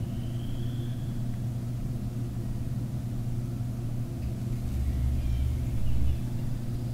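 Wild turkey gobbler drumming: a very deep hum that swells about four and a half seconds in and lasts about a second and a half, over a steady low background rumble.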